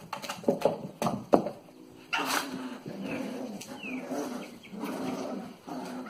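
Cavalier King Charles Spaniel puppies growling in play, a steady grumbling that starts about two seconds in and carries on, with a couple of short high squeaks. Before it, a few sharp knocks and rustles.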